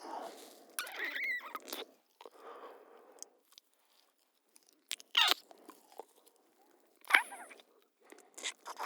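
A couple kissing: wet lip smacks and soft mouth noises. After a short pause, three sharp, louder smacks follow about two seconds apart.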